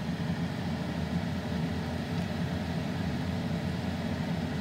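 Wontons deep-frying in a skillet of hot oil: a steady sizzle and bubbling over a low, even rumble.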